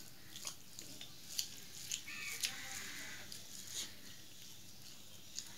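Eating by hand: fingers squishing rice and cauliflower curry together on a steel plate, with wet chewing and mouth clicks. There are several short, sharp clicks, the strongest about a second and a half in and again near two and a half seconds.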